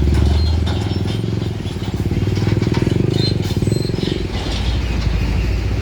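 Diesel engine of a large road vehicle running close by, a low, steady engine note.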